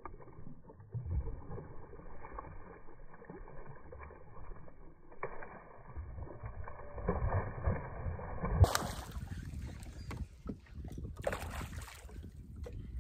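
A hooked bass splashing and thrashing at the water's surface, heard slowed down and muffled for most of the time. A little before the end the sound returns to normal speed with water splashing and wind as the fish is played beside the boat.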